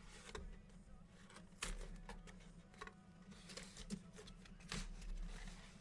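Faint handling of a cardboard trading-card box: scattered light scrapes and taps as the packaging is pried apart, over a low steady hum.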